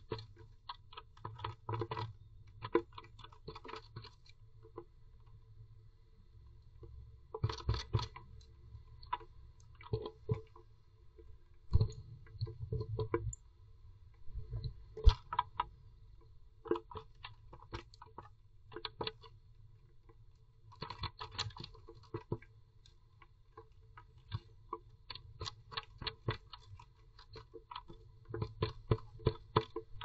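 Blue tit moving about in the nest, making irregular runs of scratching and tapping clicks that come in clusters with short quiet gaps.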